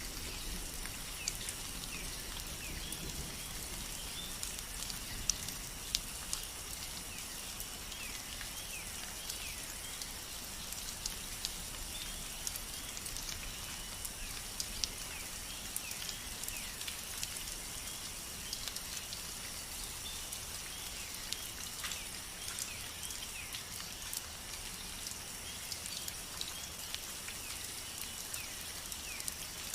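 Steady rainfall, with many scattered individual drops ticking against a surface. Faint short falling chirps recur over it.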